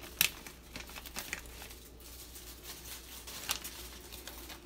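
Crinkling and rustling of a plastic spice packet and the aluminium foil under a whole fish as dried bay leaves are taken out and tucked into it, with a sharp crackle about a quarter-second in and a few lighter ones after.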